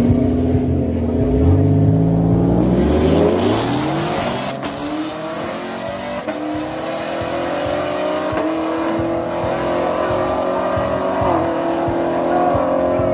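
Two drag cars launching off the line and racing down the strip, their engines revving hard. The engine pitch climbs steeply over the first few seconds, then holds high and keeps creeping up, with brief dips a couple of times in the second half.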